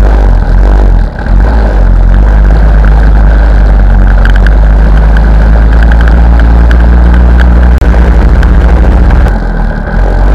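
Small motorcycle engines running while riding, under heavy wind rumble on the camera microphone. The sound changes abruptly a few times where the footage is cut.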